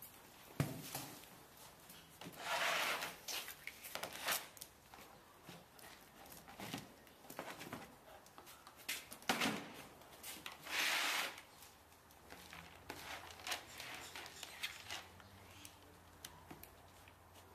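Handling noises: scattered sharp knocks and intermittent rustling or scraping, with two longer noisy bursts about two and a half seconds and ten and a half seconds in.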